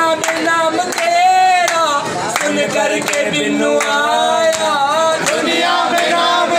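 Group of men singing a Hindi devotional bhajan in unison, with hand claps keeping time.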